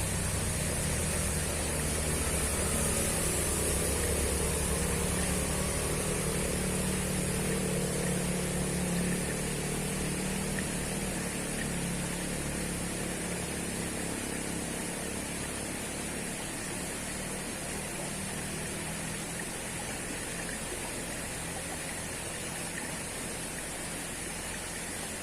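Waterfall rushing steadily, a constant roar of falling water with a deep rumble underneath.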